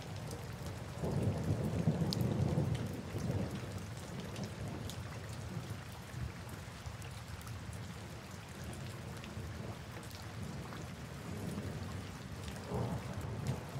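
Steady rain with low rolling thunder, the rumble swelling about a second in and again near the end.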